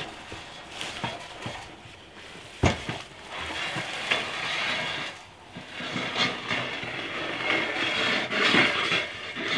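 Chick feed crumbles pouring from a plastic container into long metal trough feeders, a rattling hiss that breaks off briefly about five seconds in. There is a single sharp knock a little before three seconds in.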